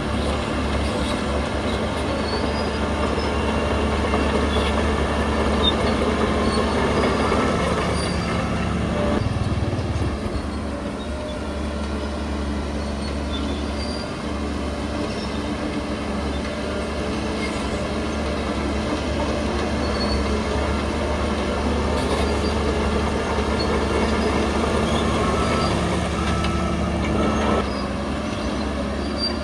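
Shantui DH17C3 crawler bulldozer at work: its diesel engine running steadily under load, with the grinding and squealing of its steel tracks.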